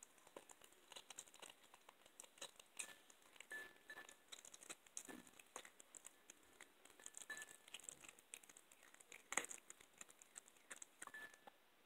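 Young cat chewing a raw chicken back: quick, irregular crunches and clicks of teeth on bone and cartilage, with one sharper crunch about nine seconds in.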